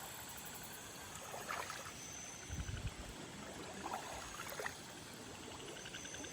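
Water sloshing and splashing in a few short bursts, with a low thump a little before the middle, over a steady background hiss.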